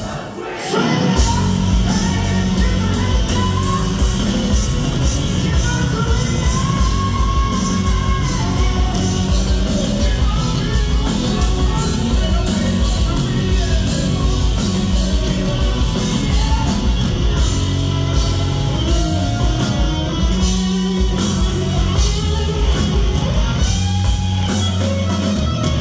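Hard rock band playing live: electric guitar, drums, bass and a male singer's voice, loud. The band drops out for a moment just after the start, then comes back in full.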